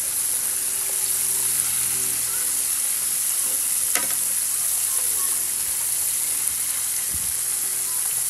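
Hot oil sizzling steadily in an electric skillet as breaded pieces deep-fry, with a fork moving them around. One sharp click about four seconds in.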